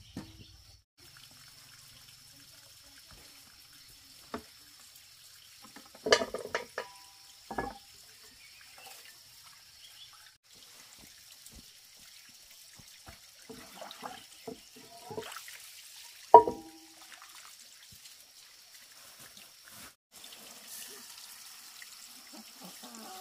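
Water handled in short splashes and trickles, with scattered knocks and clatter; the loudest knock comes about sixteen seconds in. A steady high-pitched tone runs faintly behind.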